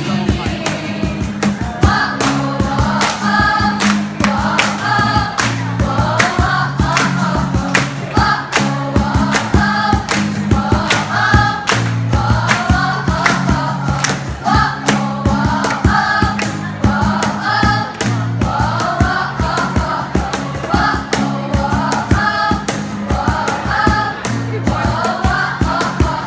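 A group of voices singing a jingle together in chorus over an accompaniment with a steady beat and sustained bass notes.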